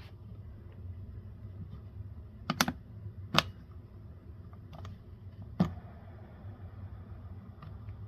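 Sharp plastic clicks from the scroll-wheel mode button on a Keychron M6 mouse as it is pressed several times, a few seconds apart. The button is stiff, needing about 125 grams to press in.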